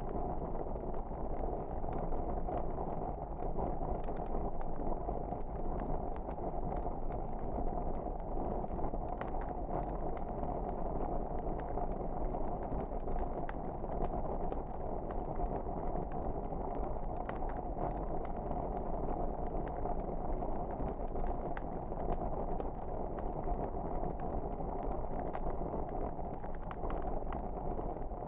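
Wood fire burning in a fireplace: a steady low rushing hiss with frequent small crackles and pops scattered throughout.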